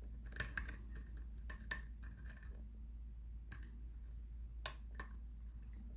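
Faint metallic ticks and scrapes of a hook pick working the spring-loaded pins inside a six-pin pin-tumbler challenge lock, with one sharper click near the end.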